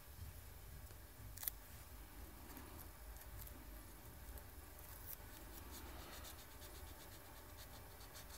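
Faint handling sounds of masking tape being pressed onto a plastic scale model, with one sharp click about a second and a half in, over a low steady hum.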